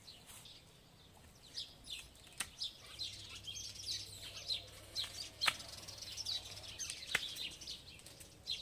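Birds chirping over and over in the background, with three sharp snaps of loppers cutting through forsythia stems, the loudest about five and a half seconds in.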